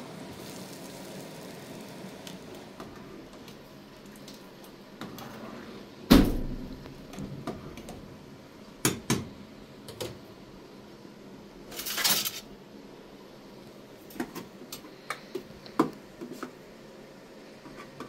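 Scattered knocks and clatter of things being handled, like pots and utensils: a heavy thump about six seconds in, a few sharper knocks after it, a short rushing noise about twelve seconds in, and light clicks near the end.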